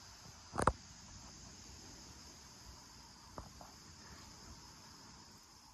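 Crickets chirping steadily and faintly in the background, with one sharp click about half a second in.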